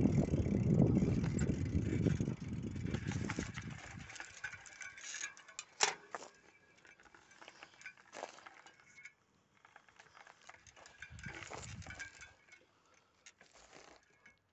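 Wind buffeting a phone microphone on a moving bicycle, a low rumble that dies away after about four seconds as the bike stops. After that come scattered clicks and light rattles, the sharpest about six seconds in.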